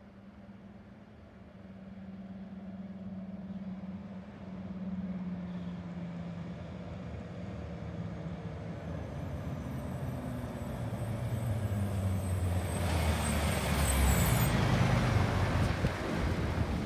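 MAN dump truck's diesel engine approaching and passing close by, growing steadily louder as it nears, its engine note dropping as it slows. A high hiss comes in over the last few seconds of the approach and cuts off suddenly.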